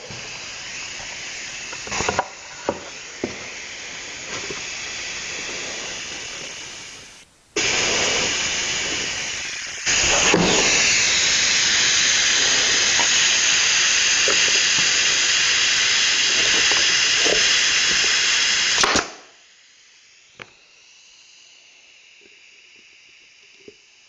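Steady hiss of compressed air around a pneumatic brad nailer, with a few sharp nailer shots in the first few seconds. The hiss gets much louder about eight and ten seconds in, then cuts off suddenly about five seconds before the end.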